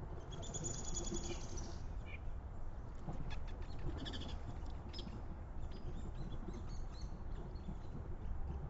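Backyard songbirds calling: one high, buzzy call lasting about a second and a half near the start, then scattered short chirps, over a steady low background noise.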